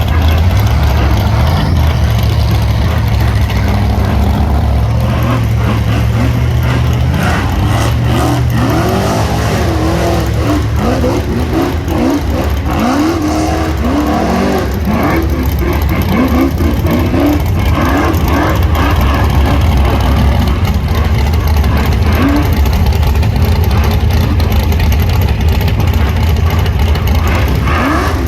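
Rock bouncer buggy engines running under load with a steady deep drone; through the middle stretch they rev up and down in quick repeated sweeps as the buggies climb.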